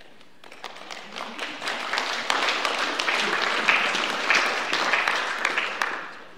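Congregation applauding, the clapping building up over the first two seconds and dying away near the end.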